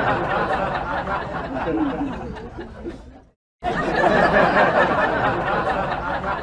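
A crowd of people laughing and chattering. It cuts out abruptly for a moment about three seconds in, then starts again.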